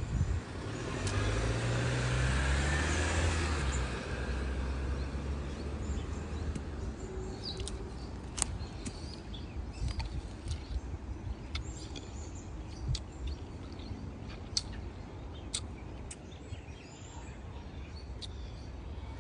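A car passing on the street: a low engine hum that rises and fades over the first five or six seconds. Then scattered short, high bird chirps.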